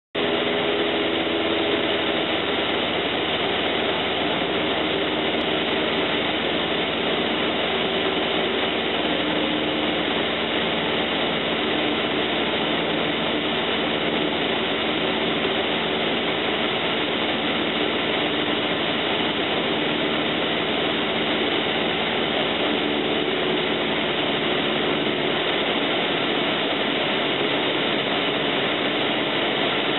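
Cessna 172M's four-cylinder Lycoming O-320 engine and propeller droning steadily at cruise-descent power, heard inside the cockpit over rushing airflow.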